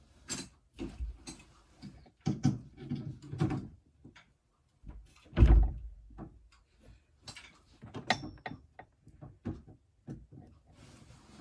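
Handling noises while a power adapter is plugged into a wall socket: scattered knocks, clicks and rustles, with one heavy thump about five and a half seconds in.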